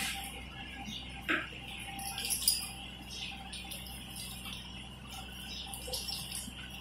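Coloured pencil scratching on paper in short, irregular strokes, over a steady low hum.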